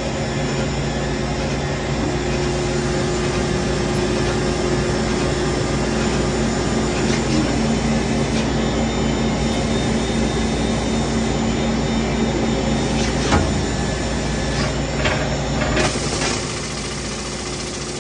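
Citizen K16E VII CNC Swiss lathe running with a steady mechanical hum and several steady tones, one of which shifts in pitch partway through. A few sharp metal clicks and knocks come near the end, and then the hum drops to a lower level.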